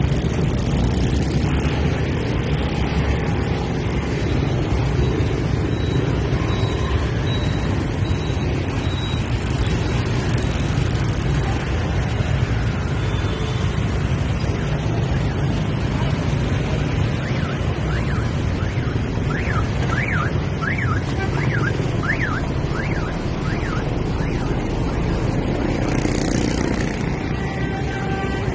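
Wind rushing over the microphone and the rumble of surrounding scooter and motorbike traffic while riding a bicycle through a city street. For about six seconds past the middle, an electronic alarm wails, rising and falling about nine times.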